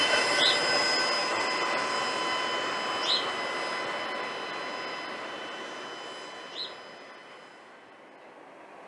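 The tail end of a freight train of empty intermodal cars rolls past and fades away. Its wheels keep up a steady high squeal over the rumble, dying down as it recedes. Three short high chirps come about half a second, three seconds and six and a half seconds in.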